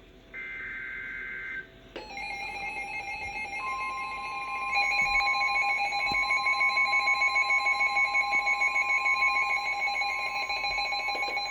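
Emergency Alert System tones: a short data burst of two alternating high tones, then a loud electronic alert tone made of several steady pitches pulsing rapidly. A steady tone near 1 kHz joins a few seconds in, and the sound grows louder about halfway through.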